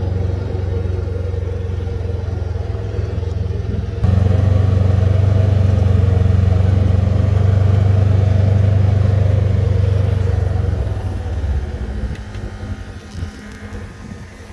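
2020 Polaris Ranger UTV engine running steadily while the machine creeps along at low speed. It jumps louder about four seconds in and dies down near the end.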